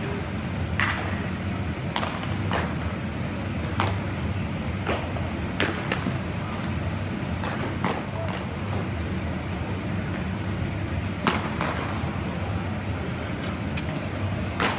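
Baseballs smacking into catchers' mitts, a sharp pop every second or two, with the loudest about eleven seconds in, over a steady low hum.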